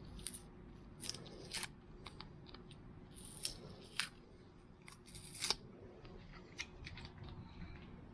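Metal hand tools being handled and set down: a run of irregular sharp clicks and clinks, the loudest about five and a half seconds in.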